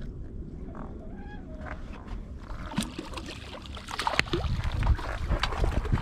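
Wind buffeting the microphone, with a brief squeak about a second in. From about halfway on comes a run of sharp clicks, knocks and rattles as a freshly landed red drum is handled in the boat and put in the bucket.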